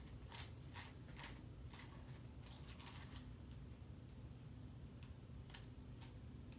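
Faint scattered clicks and taps from a small camera grip and swivel mount being handled and adjusted, several close together in the first two seconds and a couple more near the end.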